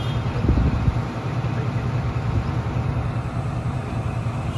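Pakistan Railways diesel locomotive 6404 idling steadily, with a low thump about half a second in.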